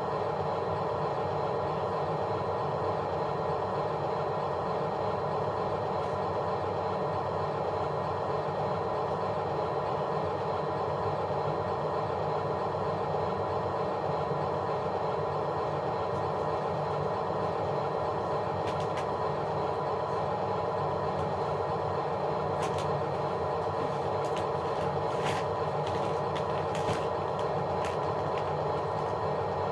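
A steady, unchanging engine or motor hum, with a scattering of sharp clicks and clatter in the second half.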